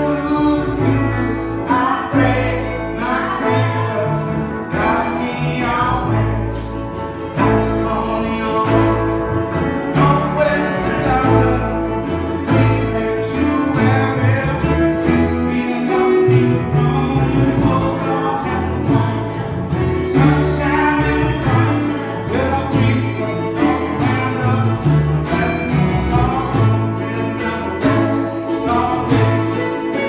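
A small acoustic band playing a song live: plucked upright double bass, strummed acoustic guitar, harmonica and piano, with a voice singing over them.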